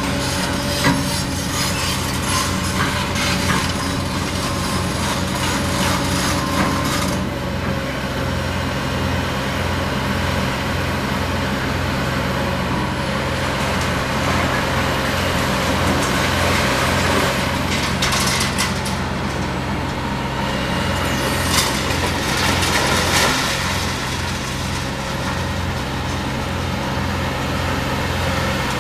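450C LC hydraulic excavator's diesel engine running steadily while its arm tears into a demolished building, with crunching and scraping of debris. The louder crashes come about two-thirds of the way through.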